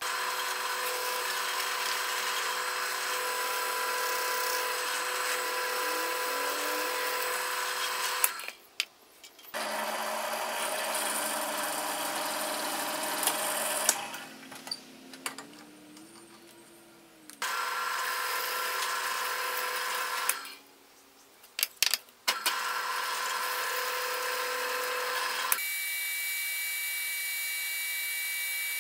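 A drill press runs steadily in several short takes, boring into plywood with a Forstner bit and then drilling a small wooden part with a twist bit, stopping abruptly between takes. Near the end a disc sander runs with a higher steady whine as a small wooden part is ground against it.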